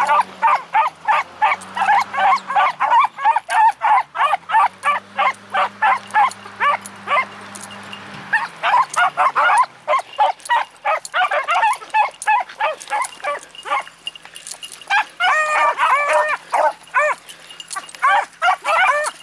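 A pack of beagles baying and yelping all together while running, many voices overlapping in a rapid, continuous chorus, easing off briefly twice. A low steady hum runs underneath.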